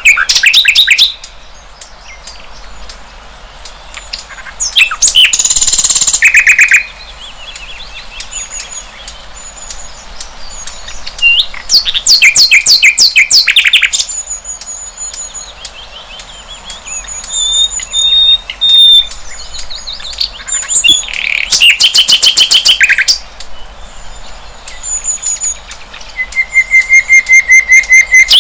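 Sikatan londo flycatcher singing: loud bursts of rapid, trilling notes every several seconds, with thin, high short whistles in between and a run of evenly repeated lower notes near the end.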